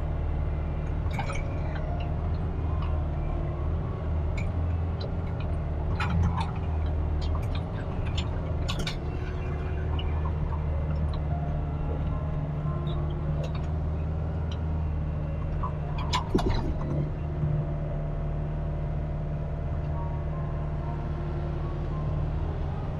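Kubota RX-503S mini excavator's diesel engine running steadily, heard from the operator's cab, its note rising and falling as the arm works. A few knocks and scrapes come through as the bucket digs and drops earth and stones, loudest about 6 and 16 seconds in.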